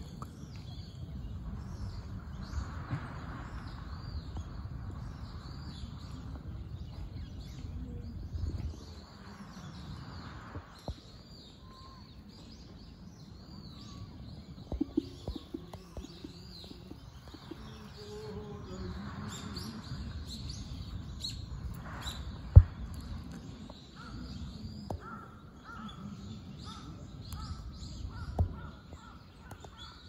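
Crows cawing now and then over frequent high chirps of small birds, with a low rumble on the microphone. A sharp knock sounds a little past the middle.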